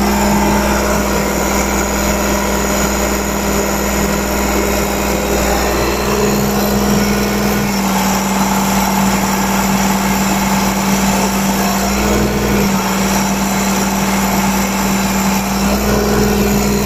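Engine of a Brinkmann compaction machine running at a steady speed, with an even hum and no change in revs beyond a brief shift about twelve seconds in.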